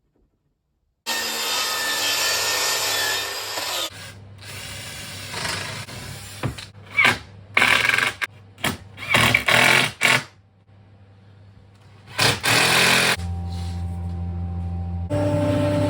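Power tools heard in a series of short clips. A loud steady whir lasts about three seconds, then comes a run of brief bursts as a tool starts and stops several times, and near the end a steady low motor hum.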